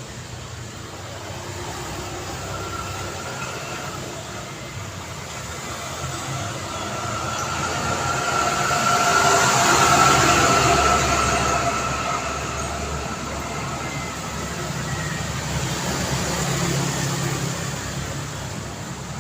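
Street traffic with one vehicle passing, growing louder to a peak about halfway through and then fading, a steady whine riding over the road noise as it goes by.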